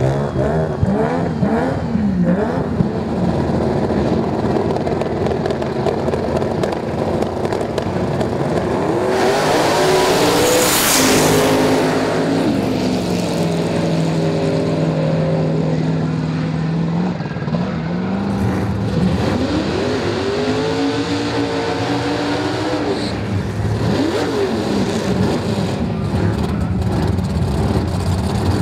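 Drag-racing car engines revving hard in repeated rising and falling sweeps, with a loud rush of engine noise about nine seconds in that lasts a few seconds.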